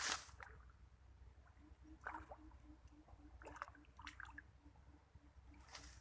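Quiet waterside sounds: a brief noisy swish at the start, then a few small splashes and drips. From about two seconds in, a faint low note pulses about four times a second.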